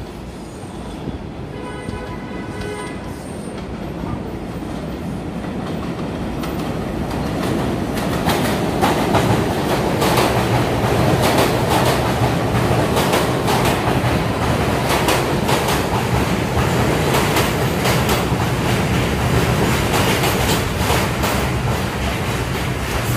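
An R68 New York subway train approaches on elevated track and pulls in alongside the platform. It grows louder over the first several seconds, then clatters rhythmically over the rail joints with a steady low hum beneath.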